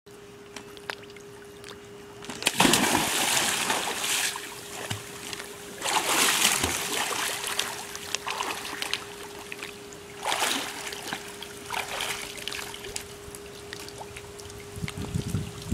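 A child jumps feet-first into a backyard pool about two and a half seconds in: a big splash and then water churning for a couple of seconds. Shorter bursts of splashing from her swimming and moving in the water follow around six and ten seconds in.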